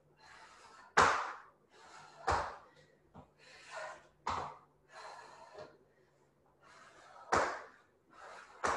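A person breathing hard in repeated quick, noisy breaths during jumping lunges and squat jumps. A few sharper, louder bursts come about a second in, twice more later, and near the end, where hard exhales meet feet landing on the floor.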